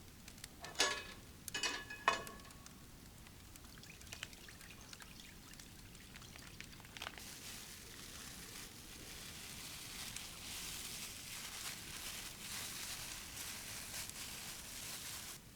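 Three sharp metallic clinks in the first two seconds, like a cup or pot being handled, then liquid pouring as a steady hiss for about eight seconds that stops abruptly near the end.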